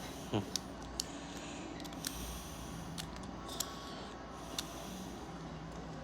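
Scattered light clicks and taps of plastic Beyblade Burst top parts being handled and fitted together, over a steady low hum.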